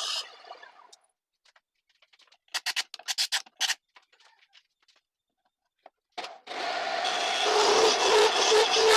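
Turning tool cutting wood on a homemade lathe, a loud scraping over a steady hum that dies away within the first second. About three seconds in comes a quick run of around ten short scraping strokes, and the cutting starts again about six seconds in.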